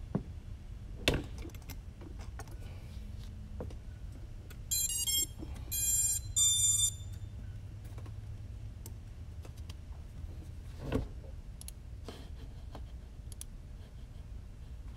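Three short buzzy electronic beeps from the quad's motors, the ESC start-up tones as the freshly re-powered drone arms its speed controllers. Sharp handling clicks come near the start, and a single knock follows about eleven seconds in.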